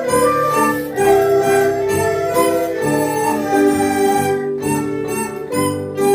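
A Chinese traditional instrument ensemble (erhu, bamboo dizi flute, guzheng, zhongruan and liuqin) playing a children's song melody, with notes changing about every half second.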